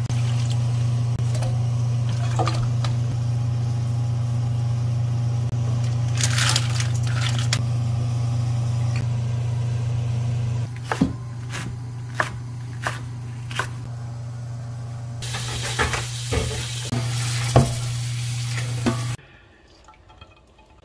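Cooking sounds at a frying pan: liquid poured into the pan over a steady low hum, then a series of short clinks and knocks of utensils and ingredients against the pan. Near the end it all stops and only a faint background remains.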